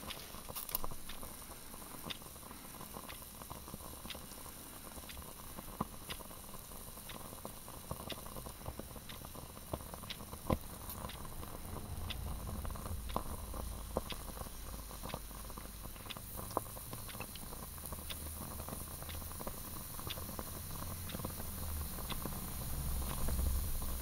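Fire Dragon solid fuel cell burning in a Swiss Army stove under a cup of water: a faint flame rumble and hiss with small scattered ticks and pops, the rumble growing louder from about halfway through as the fire builds.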